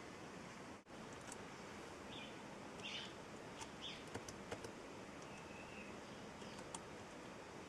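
Steady faint hiss, with a few short, faint chirps and some light clicks scattered through it.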